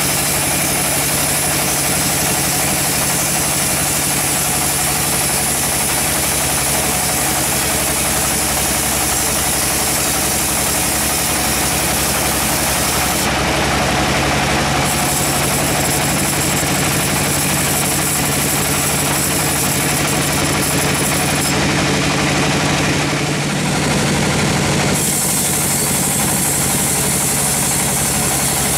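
Band sawmill running steadily as its blade rips lengthwise through a teak log: a continuous loud mechanical drone with a constant low hum. The sound changes abruptly about 13 seconds in and again around 25 seconds.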